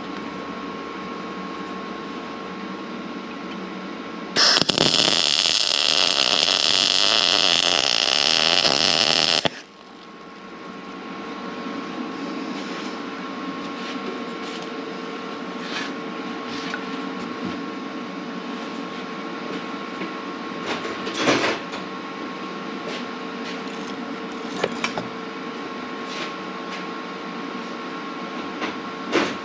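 Lincoln Power MIG 210 MP welder's arc crackling for about five seconds, starting about four seconds in and cutting off sharply, as a nut is welded onto a broken exhaust stud in an aluminum LS cylinder head to draw the stud out. A steady hum runs underneath, with a few light clicks later on.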